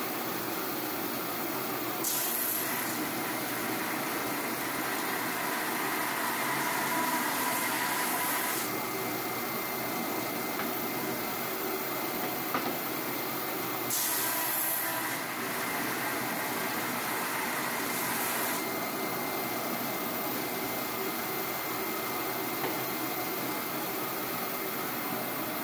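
Drum sander running steadily while a wooden raised panel door is fed under the spinning drum. Its sound changes in a few stretches of several seconds as the board passes through.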